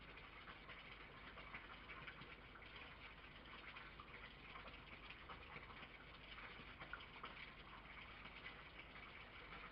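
Near silence: a faint steady hiss with light scattered clicks of a red fox chewing food from a metal tray.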